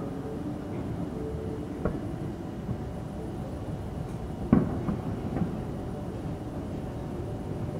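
Aerial firework shells bursting: a steady rumbling of booms with one sharp, loud bang a little past halfway and a few fainter pops before it.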